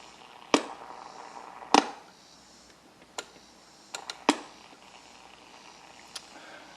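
Sharp clicks and knocks as knobs are fitted and tightened on the front panel of a Hallicrafters SX-100 shortwave receiver: two loud ones in the first two seconds, a quick cluster of three about four seconds in, and a lighter one near the end, over a faint steady hiss.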